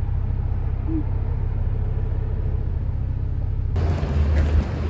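Steady low rumble of a car driving. About four seconds in the sound cuts to an outdoor one with the low rumble still there and a few light clicks.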